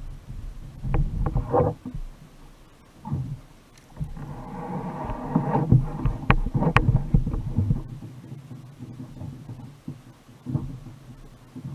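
Rumbling water and handling noise on a fishing kayak, with several sharp knocks against the hull, the loudest about six to seven seconds in.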